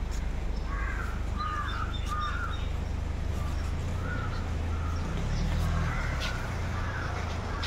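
Crows cawing repeatedly, short harsh calls coming in a quick run of three and then several more later on, over a steady low engine rumble.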